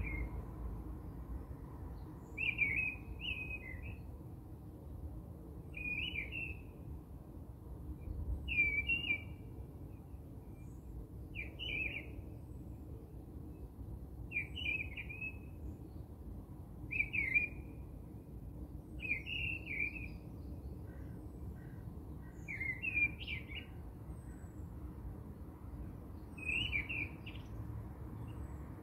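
A bird chirping a short, warbled call about every three seconds, over a low, steady background noise.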